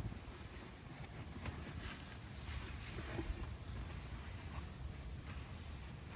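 Faint rubbing and scuffing, like a rag wiping down a surface, over a steady low rumble.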